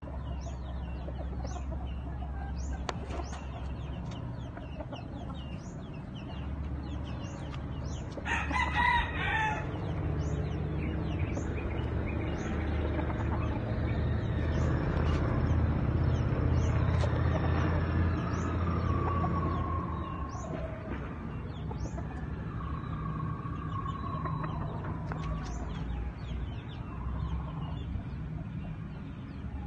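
Rooster calling: a short, loud call about eight seconds in, then longer wavering crows through the middle. Faint high chirps and a steady low rumble run underneath.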